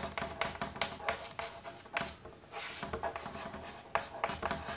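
Chalk writing on a chalkboard: a run of quick, short scratching strokes and taps, with brief pauses between them.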